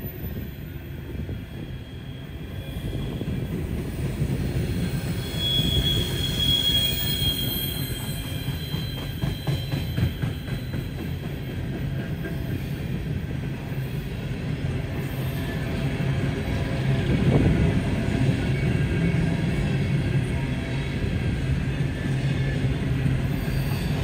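Freight train rolling past with a steady low rumble of wheels and cars, growing louder after a few seconds. A high wheel squeal rises around six seconds in, and a run of rapid clicks comes around ten seconds in.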